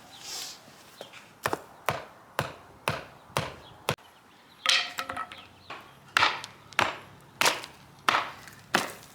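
A hammer striking the wooden form boards and stakes around a fresh concrete pad to knock them loose: about a dozen sharp blows, roughly two a second, in two runs separated by a short pause. One blow midway has a brief ringing tone.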